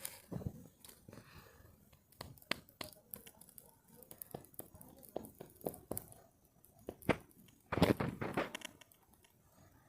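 Campfire crackling, with irregular sharp pops and snaps, and a louder stretch of crunching or rustling about eight seconds in.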